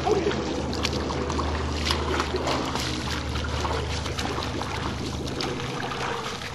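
Swimming-pool water splashing and lapping, many small irregular splashes over a steady low hum.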